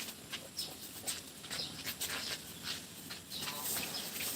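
Newborn piglets squeaking and shuffling, a scatter of short, faint squeaks and rustles with one brief call about three and a half seconds in.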